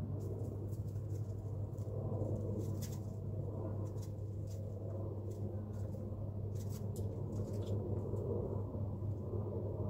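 Chickens pecking and scratching in a coop: scattered light clicks and scratches, irregular, over a steady low hum.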